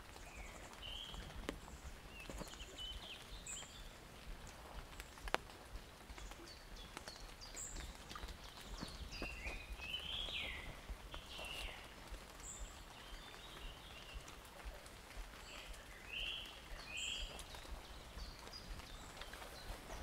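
Forest birds chirping and calling, with clusters of short, falling chirps and a high short note repeating every few seconds. Footsteps on the forest floor add scattered clicks, with one sharp snap about five seconds in.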